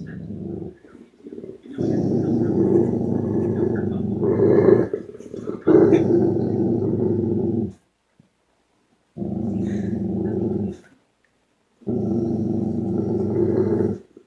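A dog growling at a TV commercial in long, low, rough bouts with short silent gaps between them: a long growl of about six seconds, then two shorter ones.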